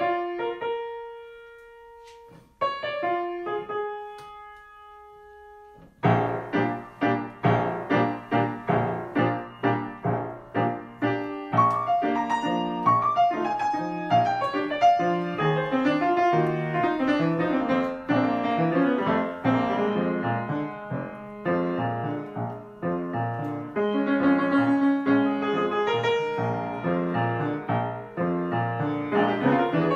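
Acoustic piano: two held chords left to ring and fade, then from about six seconds in a continuous flowing piece of many notes.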